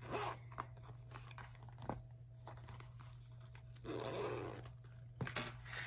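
Crinkling and rustling of a vinyl zippered makeup bag being handled and opened, with scattered small clicks and a longer scratchy stretch about four seconds in, over a low steady hum.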